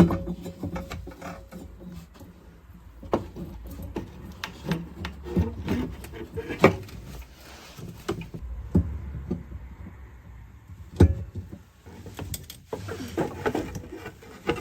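Irregular knocks and scraping from parts being handled and worked into place during a repair, with several sharp knocks spread through the stretch.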